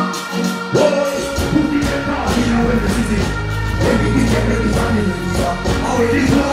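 Live dancehall music over a concert PA: a deejay chanting into the microphone over the riddim, with a heavy bass beat coming in about a second in.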